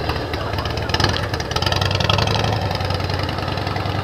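Motorcycle engine running steadily at low revs, with fast, even firing pulses.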